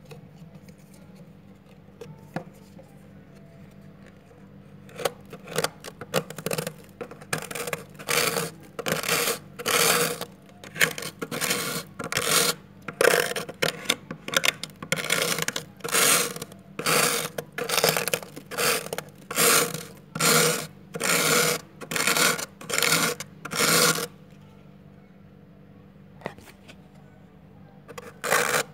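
Plastic card scraping thick frost off a freezer wall in short, repeated strokes, a little more than one a second. The strokes start about five seconds in, stop for a few seconds near the end, then start again.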